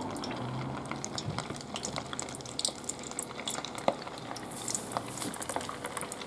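Starch-coated pieces of morwong deep-frying in a pot of hot oil: a steady bubbling hiss with frequent crackling pops, as more coated pieces are dropped in.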